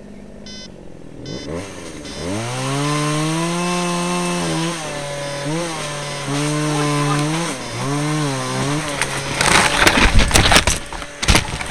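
Chainsaw engine coming up to speed about a second and a half in, then running at high revs with repeated short dips as it cuts into the tree. Near the end come loud cracking and crashing as the tree gives way and branches break in the fall.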